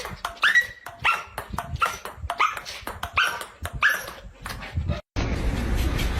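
A dog barking in a run of short, high-pitched yips, each sliding quickly up in pitch, about one every half second to second. About five seconds in, the barking stops abruptly and gives way to a steady rushing noise.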